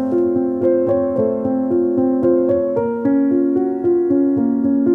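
Background keyboard music: a piano-style melody over sustained chords, with notes changing several times a second.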